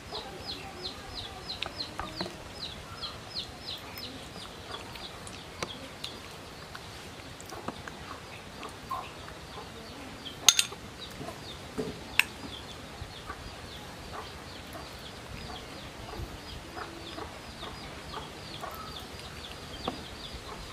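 Chicks peeping in a steady run of short, high, falling chirps, about three or four a second, with hens clucking. Two sharp clinks stand out about ten and twelve seconds in, a metal spoon knocking against a ceramic bowl.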